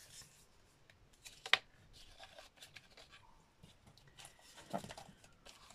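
Folded card stock being handled and pressed flat on a cutting mat: light scattered rustles and clicks, with one sharp tap about a second and a half in.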